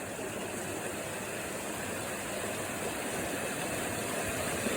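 Steady rush of river water flowing over rocks, growing slightly louder.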